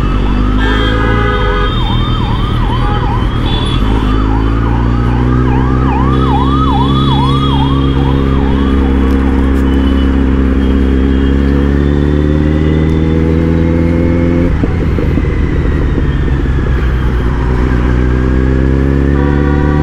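Kawasaki Z900's inline-four engine running under way, its pitch climbing slowly for about ten seconds, then dropping suddenly about two-thirds through. Over the first half a siren-like wail rises and falls about twice a second, and a horn honks near the start and again at the end.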